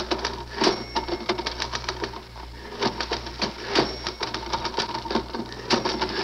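Manual typewriter being typed fast: a rapid, uneven clatter of key strikes with a few heavier strokes, and two short bell-like rings, about a second in and near the middle.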